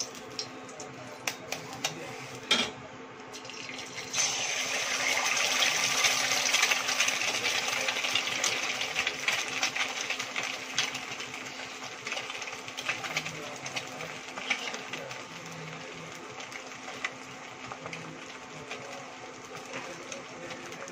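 An egg frying in hot oil in a kadai. There is a sharp knock about two and a half seconds in, then the oil starts sizzling loudly a second or so later and eases into a steady, crackling sizzle.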